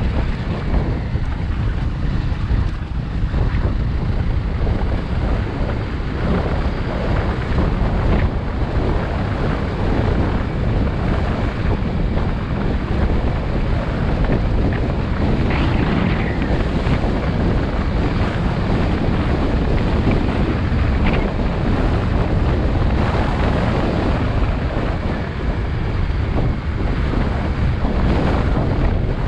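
Steady wind buffeting the microphone of a Honda CRF250 Rally dirt bike riding along a dirt track, with the bike's single-cylinder engine running underneath.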